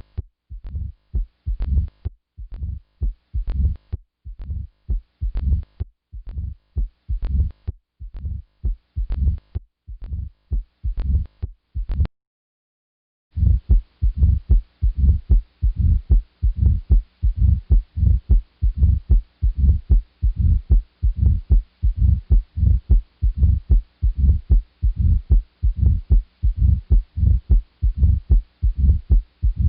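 Recorded heart sounds heard through a stethoscope, a steady run of low thudding beats. About twelve seconds in they stop for about a second, and a different recording follows with faster beats and a steady hiss behind them.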